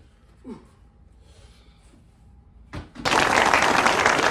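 Quiet for about three seconds except for a single thump, then a crowd applauding loudly, starting abruptly about three seconds in.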